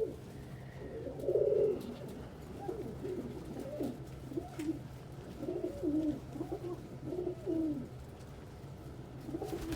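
Several domestic pigeons cooing, overlapping low coos repeating throughout, over a steady low hum.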